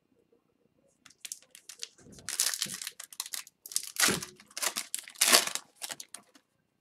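Foil wrapper of an O-Pee-Chee Platinum hockey card pack crinkling and tearing as it is ripped open by hand. It is a string of rustles starting about a second in, loudest in the middle and again near the end.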